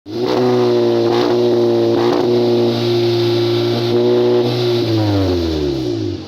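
Volkswagen Tiguan engine through an aftermarket sport exhaust, held at high revs with a steady drone, then the revs falling away over the last second or so.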